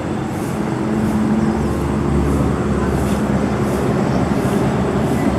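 A heavy engine rumbling out of sight, its low hum growing slightly louder, with a faint high pulsing about twice a second over it.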